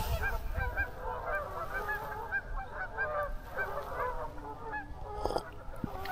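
A flock of geese honking, many calls overlapping, thinning out about five seconds in. A couple of light knocks near the end.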